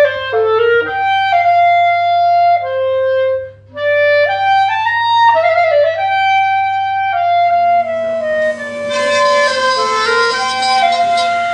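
Hanson African blackwood clarinet playing a solo melody of held notes, with a short break a little under four seconds in. Over the last few seconds a steady machine hum and hiss from the tone-hole drilling machine comes in under the clarinet.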